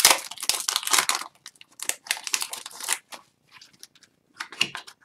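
Plastic wrapper of an Upper Deck Series 1 hockey card pack being torn open and crinkled by hand, in irregular bursts, busiest in the first second or so, again around two to three seconds in and briefly near the end.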